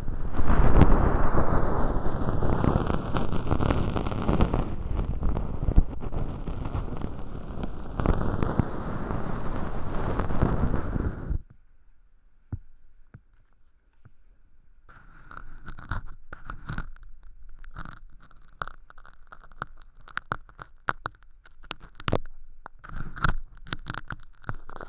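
Ear pick scraping through thin, crispy flakes of fake earwax inside a binaural microphone's ear canal: a loud, dense scratching rustle for about eleven seconds, then after a short pause a run of sharp crackles and clicks as the flakes break up.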